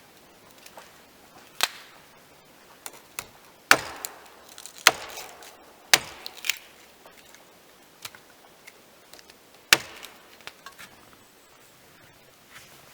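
Sharp chopping strikes on wood, about six irregular blows spread over ten seconds, the loudest about a third of the way in and again near the end.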